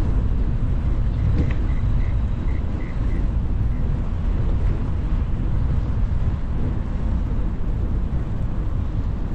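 Steady low rumble of wind on the microphone as it moves along a path. A little over a second in, a quick run of about seven short high chirps sounds over it.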